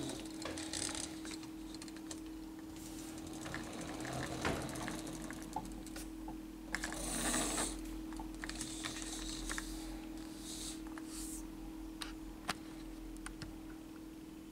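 Light clicks, taps and short rattles of a plastic toy tractor being handled and moved across a tabletop, over a faint steady hum.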